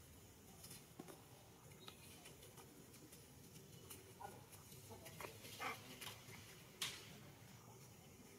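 Near silence broken by a few faint, short monkey squeaks and light clicks of movement, clustered in the second half.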